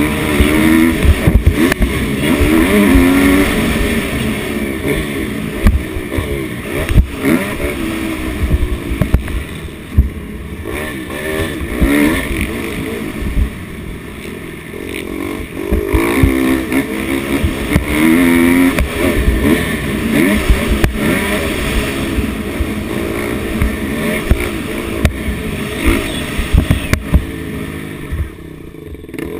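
Dirt bike engine running hard, its revs climbing and dropping again and again as the throttle is worked around a motocross track.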